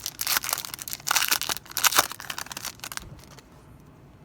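A basketball trading-card pack wrapper being torn open and crinkled by hand, with quick, rapid crackles that stop about three seconds in.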